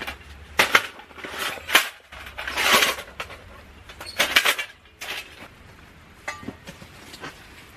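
Rusty steel folding fire pit being unfolded and set up: several sharp metal clanks and a longer scrape in the first five seconds, then only faint small knocks.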